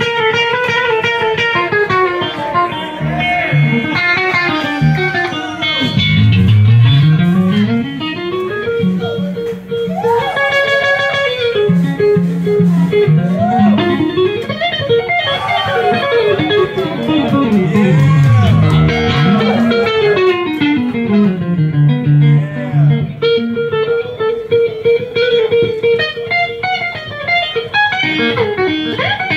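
Electric guitar played live through an amplifier: a solo of fast note runs that sweep down in pitch and climb back up, mixed with bent and long-held notes.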